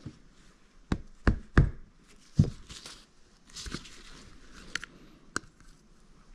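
About seven sharp, irregular knocks as a flathead screwdriver is knocked against a bearing to drive it out of a Bafang G60 hub motor.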